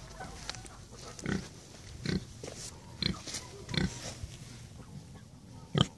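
Pig grunting in short, separate grunts, about five of them, the loudest near the end.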